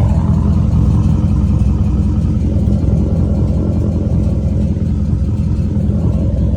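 Chrysler 300 SRT8's 6.4-litre Hemi V8 running steadily and loud, with a deep exhaust rumble. The owner suspects a tick on the passenger side, from either the lifters or an exhaust leak.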